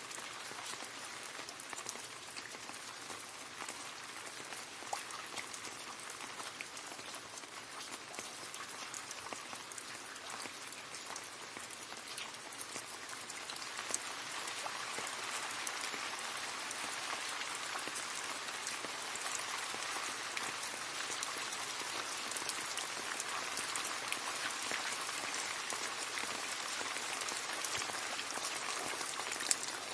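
Steady rain falling and splashing into a puddle, a dense hiss of many small drop impacts, getting heavier about halfway through.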